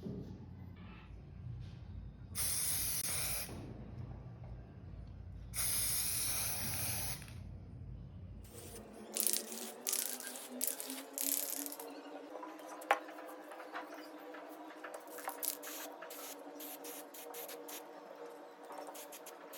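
Two bursts of aerosol spray paint hissing from a spray can, each a little over a second long, followed by light clicks and taps.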